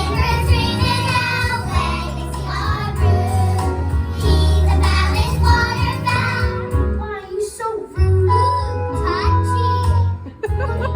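Children singing a musical-theatre song over instrumental accompaniment with a steady bass; the voices drop out about seven seconds in, leaving the accompaniment with a held note.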